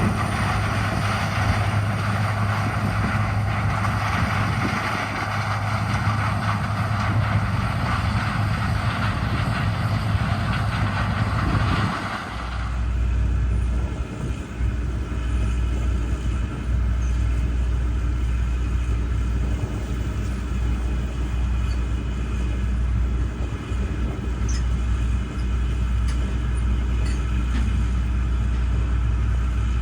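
Large John Deere diesel farm machine running steadily, a constant engine hum with a hiss over it. About twelve seconds in the sound changes abruptly to a lower hum with less hiss.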